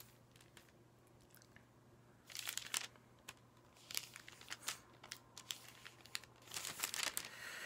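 Paper pages rustling and crinkling in short bursts as a Bible is leafed through, three clusters of crackles over a faint steady hum.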